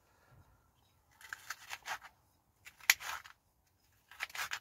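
A knife slicing through a sweet red pepper onto a metal plate: three short bouts of crisp cutting, with one sharp click about three seconds in.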